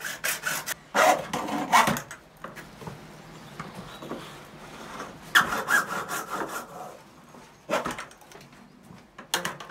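Hand saw cutting through grey plastic pipe in quick back-and-forth strokes, about five a second. The strokes come in a run over the first two seconds, again about five and a half seconds in, and briefly near the end, with quieter handling between.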